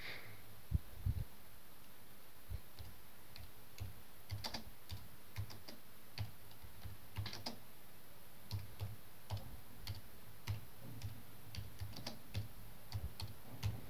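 Computer keyboard keys pressed one at a time in slow, irregular typing: faint separate clicks, one or two a second, over a steady hiss.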